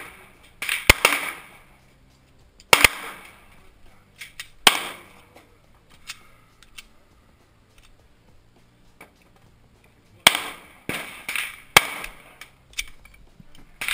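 Semi-automatic pistol shots, each a sharp crack with a short echoing tail. A few shots come a second or two apart in the first five seconds. After a quiet stretch, a quicker string of shots starts about ten seconds in.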